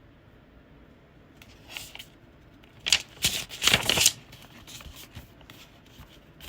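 Paper rustling as a picture book's page is handled and turned, in a quick flurry of crinkles that is loudest around the middle.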